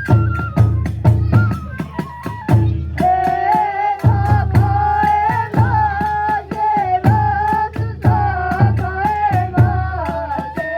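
Kagura hayashi accompaniment: a bamboo transverse flute playing a wavering, held melody over steady taiko drum beats and repeated clashes of small hand cymbals.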